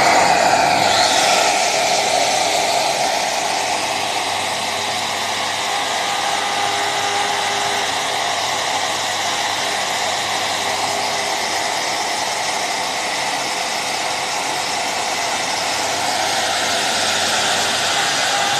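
Shaper Origin handheld CNC router running at full speed with a Keilverbinder dovetail cutter, milling a pocket into a sample board. The spindle noise is a steady, loud whirring hiss that holds level throughout.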